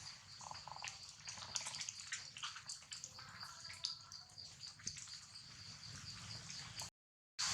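Faint outdoor ambience: a steady high-pitched drone with many small scattered clicks and a few brief, faint squeaks. It cuts to dead silence for about half a second near the end.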